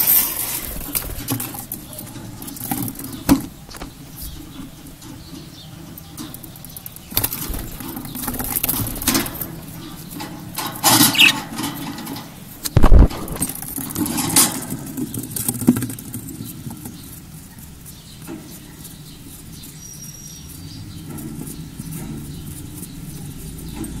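Handling noise at a wooden nest box: rustling, scraping and knocks against the wood, with one loud knock about 13 seconds in.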